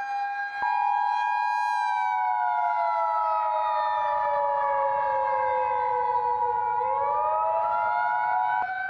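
Emergency Alert System two-tone attention signal, generated by a Sage Digital ENDEC, sounding steadily for about eight seconds and cutting off just before the end. Under it a siren wails, its pitch sliding slowly down and then climbing again near the end.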